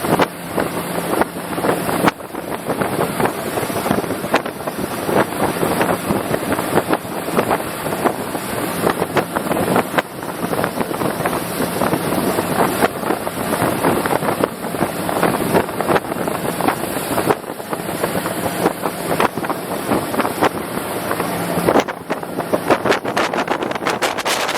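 A RIB boat's outboard motor running underway, with wind rushing over the microphone.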